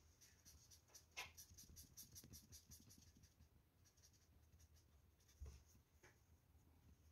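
Felt-tip marker colouring on paper: faint, quick scratchy strokes, about five a second, that stop about three seconds in. A soft low thump follows a little after five seconds in.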